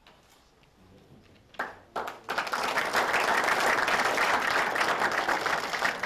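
A small group of people applauding: a few single claps about a second and a half in, then steady applause from about two seconds in that starts to die away at the end.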